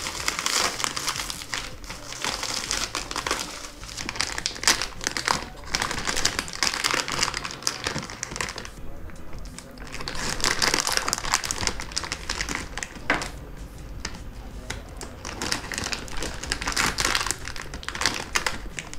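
Plastic packaging crinkling and rustling in irregular bursts as hands unwrap bubble wrap and open clear zip-lock bags, with a short lull about nine seconds in.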